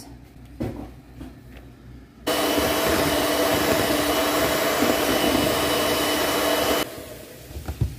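Kenwood electric mixer switched on about two seconds in. Its motor runs with a steady hum as the beaters mix grated carrot into cake batter, and it is switched off near the end.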